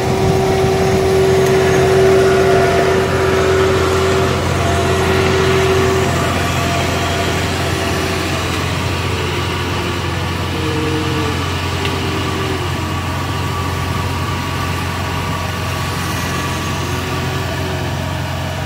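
Kubota DC-70 Plus combine harvester's diesel engine running steadily as the machine drives along on its tracks. A steady whine sounds over it for the first six seconds or so, and the sound grows slightly fainter as the combine moves away.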